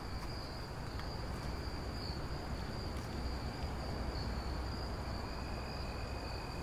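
Crickets trilling steadily in one high, unbroken tone, with a second, lower trill joining about five seconds in, over a low steady rumble.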